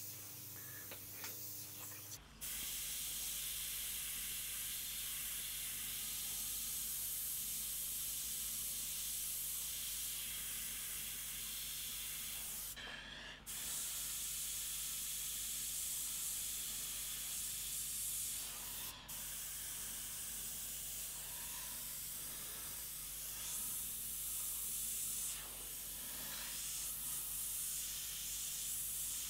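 Iwata gravity-feed airbrush spraying paint: a steady hiss of air starting about two seconds in, breaking off briefly twice.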